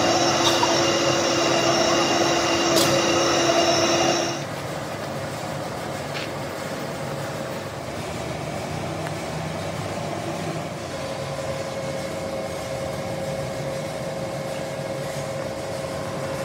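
Vertical lathe turning a grey cast iron V-belt pulley, a loud steady machining whine with several held tones, which stops abruptly about four seconds in as the cut ends. A quieter steady machine hum remains after it.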